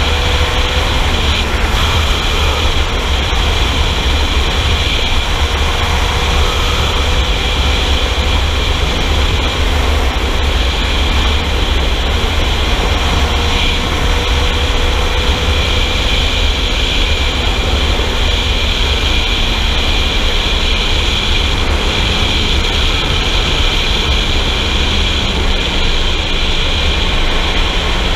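Sport motorcycle cruising at a steady speed: heavy wind rush buffeting the mounted microphone, with the engine running underneath at a steady pitch that slowly drifts.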